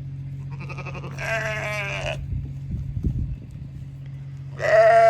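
Sheep bleating twice: one long bleat about a second in, then a louder one near the end, over a steady low hum.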